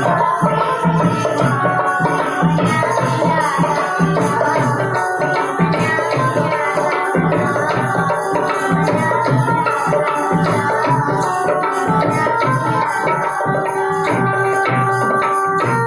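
Music with a hand drum keeping a steady beat under a sustained melody.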